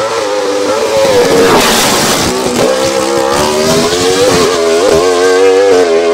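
Wolf GB08 Thunder sport-prototype race car accelerating hard at high revs, the engine note climbing and then dropping sharply at each quick gear change, several times over.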